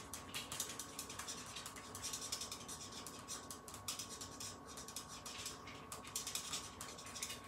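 Stampin' Blends alcohol marker tip scratching across cardstock in quick bursts of short back-and-forth strokes, colouring in a small stamped image.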